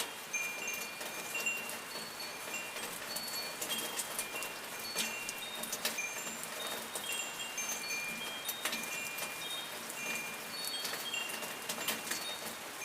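Wind chimes tinkling irregularly with short, high, clear notes at several pitches, over the steady hiss of falling rain with occasional sharp drips.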